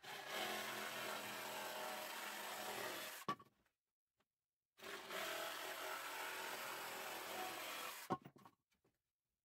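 A power jigsaw cutting a wooden board, run in two bursts of about three seconds each with a pause between. Each burst ends with a sharp knock.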